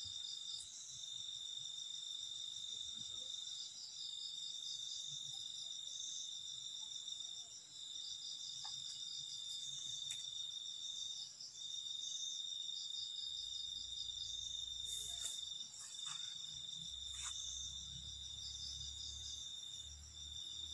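Steady chorus of night insects, crickets among them: a continuous high-pitched trill with a faster pulsing call above it.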